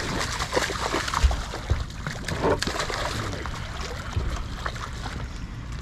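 A small striped bass, hooked and being reeled in, thrashes at the water's surface in a run of irregular splashes over a low steady rumble.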